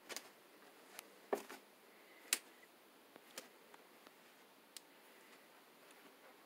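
Scattered light clicks and taps in a quiet room: handling noise from a handheld phone being carried around, with the two loudest knocks about a second and a half and two and a half seconds in.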